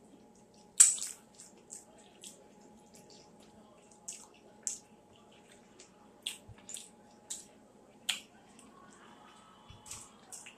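Close-miked eating sounds: wet chewing of rice and gravy with irregular sharp mouth clicks and smacks, the loudest about a second in.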